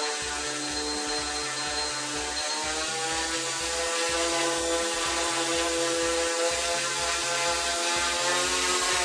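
Single 1000KV brushless motor spinning a 10-inch propeller, a steady pitched whine with a rush of air that rises slightly in pitch a few seconds in and winds down right at the end. A regular low beat of background music runs underneath.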